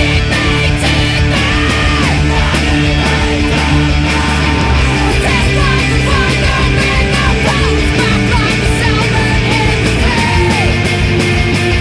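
Post-hardcore band recording: distorted electric guitars, bass and drums playing continuously, with a yelled vocal line over them.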